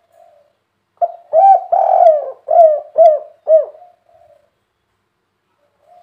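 Spotted dove (tekukur) cooing. A faint soft coo comes first, then about a second in a loud phrase of about six low coos, one long note in the middle followed by three short, evenly spaced ones: the 'kuk 3' song type prized in contest doves.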